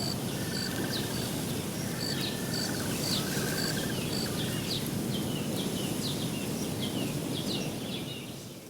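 Songbirds chirping and trilling, with short high notes repeated about twice a second and quick falling whistles, over a steady low rushing background noise; it fades out at the end.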